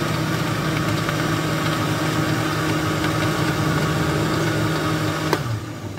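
Electric countertop blender motor running at a steady pitch while blending a drink, then switched off with a click about five seconds in.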